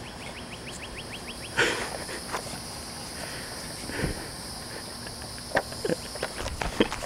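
Outdoor ambience with a steady high insect drone and a brief fast ticking trill near the start. A few scattered knocks and rustles fall through it, the loudest about a second and a half in.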